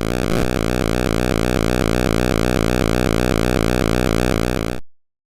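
Synthesizer background music with a steady, evenly repeating pattern, cutting off suddenly near the end into silence.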